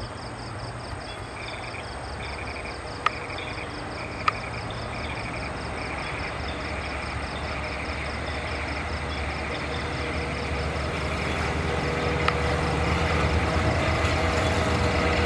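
Alsthom diesel-electric locomotive hauling a passenger train on approach: a low engine drone that grows steadily louder as it draws near. A few sharp clicks stand out, two of them a little over a second apart early on.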